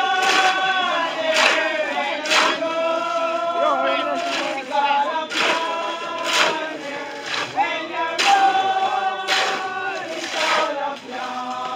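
A group of people singing together in chorus, holding long notes, with a sharp regular beat about once a second.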